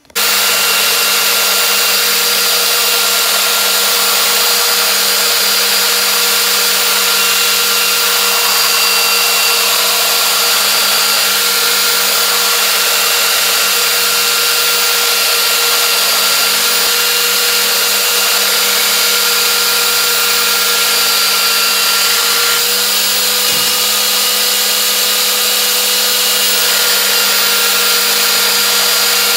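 Electric angle grinder running steadily and grinding metal: a constant motor whine over a harsh grinding hiss. The pitch shifts slightly about three quarters of the way through.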